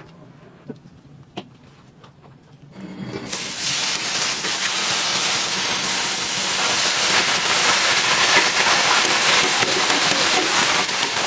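Sliced onions sizzling loudly on a hot flat-top griddle as metal tongs toss them, the sizzle setting in about three seconds in after a quieter stretch with a couple of light clicks.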